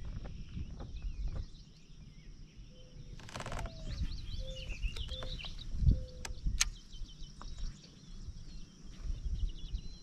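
Outdoor ambience with small birds chirping in short, scattered phrases over a steady low rumble. A few sharp knocks, the loudest a thump about six seconds in, and a brief rattle a little after three seconds.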